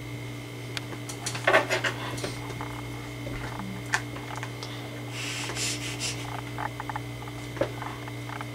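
Forks and a knife clicking and scraping against pie dishes as pie is cut and eaten, loudest in a quick cluster of clicks about a second and a half in, over a steady low hum.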